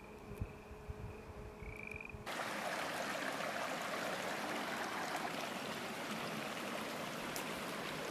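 Small mountain creek running over rocks, a steady rush of water that comes in abruptly about two seconds in. Before it there is quieter outdoor ambience with a faint steady high-pitched tone and a few low thumps.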